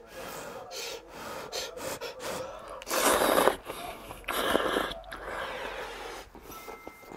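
A person slurping ramyeon noodles and broth from a small bowl: two loud slurps, about three seconds in and again about a second later, between softer chewing and breathing sounds.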